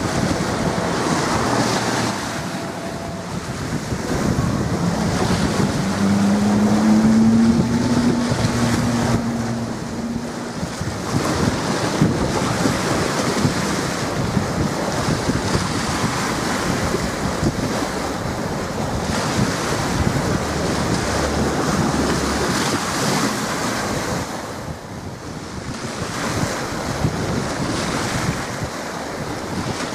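Strong wind buffeting the camcorder microphone in gusts, over choppy water washing below. A low steady hum comes in for about four seconds roughly a fifth of the way in.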